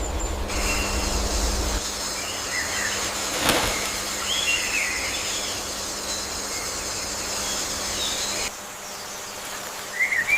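A few short bird chirps over a steady background hum and high whine, with a low rumble in the first couple of seconds and a single knock about three and a half seconds in.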